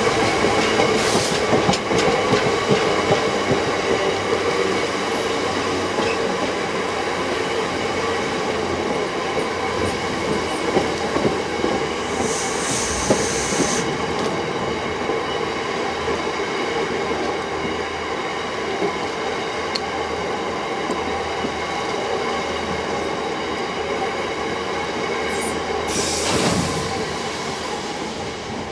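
Freight train hopper wagons rolling past close by: wheels running on the rails with a steady ringing squeal and a few short hisses. The sound fades near the end as the last wagon goes by.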